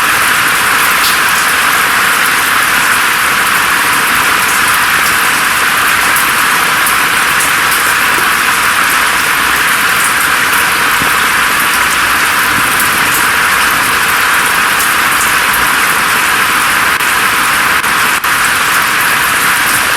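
Steady rain falling through forest foliage: an even, unbroken hiss with little low rumble, flecked with faint sharp drop ticks.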